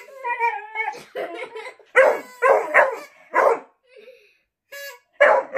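Beagle howling and barking: a drawn-out falling howl at the start, then a run of four short, loud barks about two seconds in, with a man's voice mixed in.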